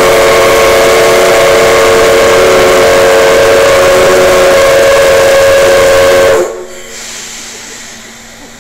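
Steam whistle of the JNR Class D51 steam locomotive D51 498 sounding one long, loud blast that cuts off suddenly about six seconds in, followed by quieter hissing steam.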